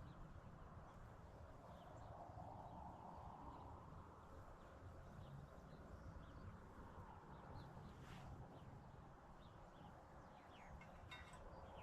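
Near silence: faint outdoor woodland ambience with scattered faint bird chirps, and a few soft clicks, one about eight seconds in and a few near the end.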